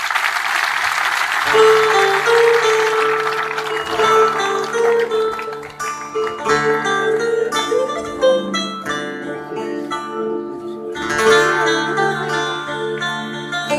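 Live band starting a song on acoustic guitars and other plucked strings, the notes picked in a steady pattern. A wash of audience applause is heard at the start and fades as the music comes in. The playing drops back briefly near the end and then carries on.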